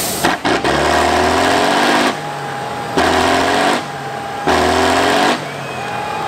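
An eight-wheeled trial truck's engine revs hard three times, each burst lasting about a second, and drops back to a lower run between them as the truck works its way through a steep mud section.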